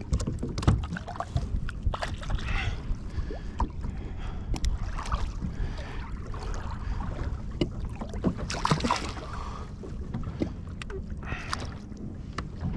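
Wind on the microphone and water lapping at a kayak's hull, with scattered sharp clicks and a few short splashy rustles from handling and unhooking a caught fish.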